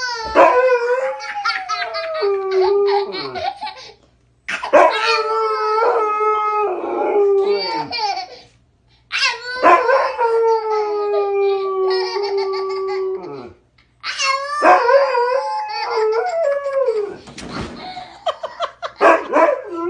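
A dog howling along with a young child's voice and laughter, in four long drawn-out howls separated by short pauses.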